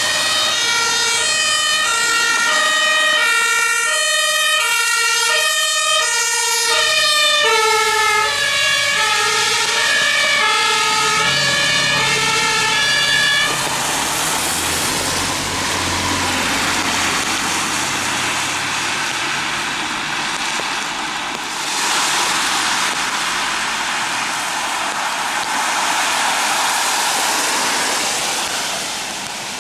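German two-tone emergency vehicle siren (Martinshorn) switching back and forth between a high and a low note, with a second siren overlapping out of step. The sirens stop about fourteen seconds in, leaving the hiss of tyres on the wet road as vehicles pass.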